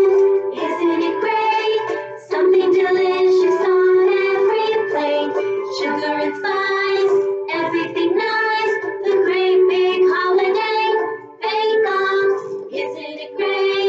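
A children's song: voices singing a melody over instrumental backing, with short breaks between phrases about two seconds in and near the end.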